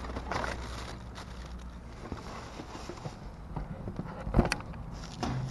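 Hand rummaging through packed dumpster trash: plastic wrap and cardboard rustling and shifting, with scattered clicks and one sharp knock about four seconds in.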